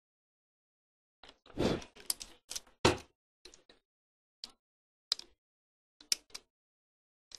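Irregular sharp clicks and taps from fingers handling a small circuit board close to the microphone, with a brief rustle about a second and a half in.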